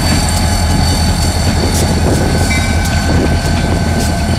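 Reading and Northern diesel locomotives rolling past at close range, their engines giving a loud steady low rumble. A steady high whine runs over it, with scattered sharp clicks from the wheels on the track.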